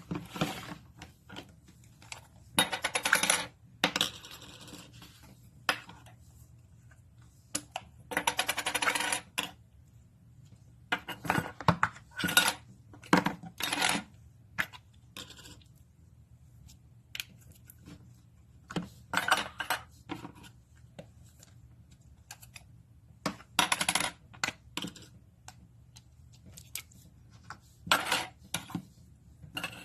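Crunchy material being crushed and squeezed, in a run of irregular crackling crunches, a few of them drawn out to about a second.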